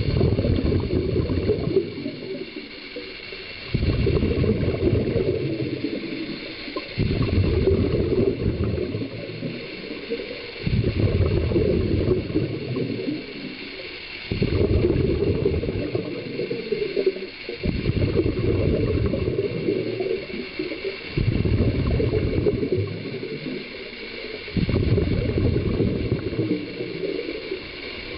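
Scuba regulator breathing heard underwater: bubbling bursts of exhaled air, eight of them, one about every three and a half seconds, with quieter gaps between.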